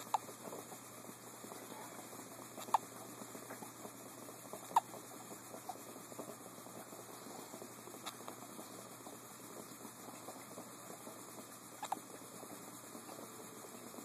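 A baby hiccupping: five short, high little hiccups a few seconds apart, each dipping slightly in pitch, the third the loudest.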